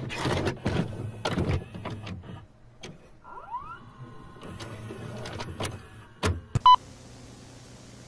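VCR tape transport working as a tape is stopped and set to play: a run of clicks and clunks, a motor whirring up in pitch, more mechanical clicks, then a short electronic beep near the end.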